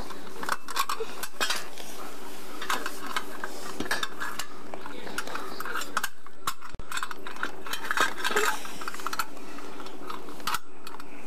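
Metal plumbing parts clinking, tapping and scraping in irregular clicks as hands work at pipe fittings, over a steady low hum.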